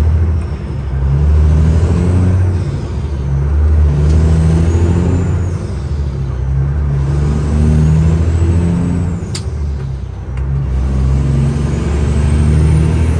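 CAT 6NZ inline-six diesel in a Kenworth W900, heard from inside the cab, pulling the truck up through the gears. The engine note climbs and then falls back at each shift, every two to three seconds. A high whistle rises and fades over it three times, and there is one sharp click a little past the middle.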